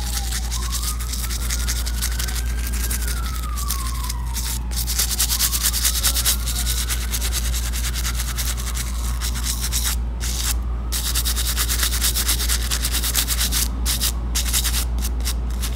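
Nail brush with stiff bristles scrubbing fingernails coated in whitening paste, a quick back-and-forth scratching that goes on with a few short pauses. Underneath, a faint wailing tone slowly rises and falls.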